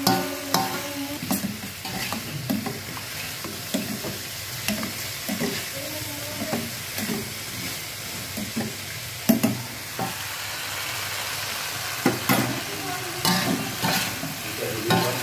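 A metal spatula scraping and knocking against a metal wok as sauce-coated fried chicken is stirred, over a steady sizzle of frying.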